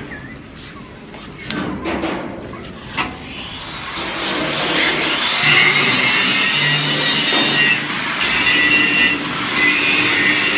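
An angle grinder starts grinding a weld's root pass about four seconds in, then runs steadily with a high whine over a harsh grinding hiss. A few knocks and clicks come before it.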